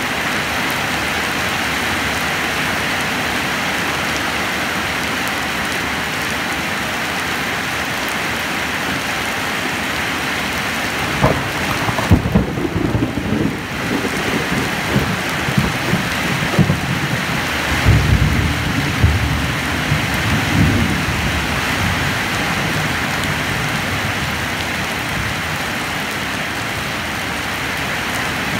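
Heavy rain falling steadily on ground and vegetation. About eleven seconds in, a thunderclap cracks, followed by low rolling thunder that rumbles on for about ten seconds before the rain is heard alone again.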